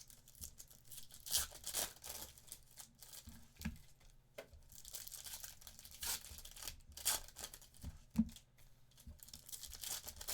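Sports card pack wrappers being torn open and crinkled, in irregular bursts of tearing.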